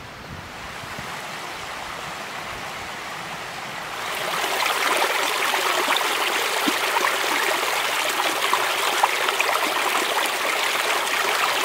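Small shallow stream flowing fast over a low rocky step, a steady splashing rush that gets clearly louder about four seconds in.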